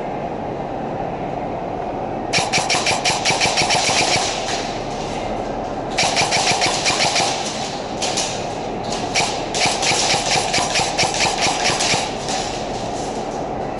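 Airsoft guns firing on full auto in rapid bursts of sharp clicks, four bursts lasting one to three seconds each, the first about two seconds in, over a steady hum.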